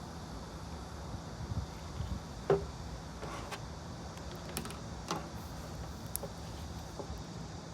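Steady low background hum with scattered small clicks and knocks, the sharpest about two and a half seconds in, typical of desk-work sounds in a study session.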